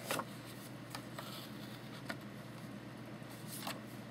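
Cardstock being handled while hand-stitching with needle and thread: a few short rustles and taps, about five in four seconds, over a steady low hum.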